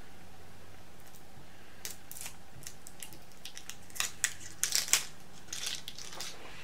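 A lip stain's packaging being opened by hand: scattered crinkles and sharp clicks, thickest about four to five seconds in.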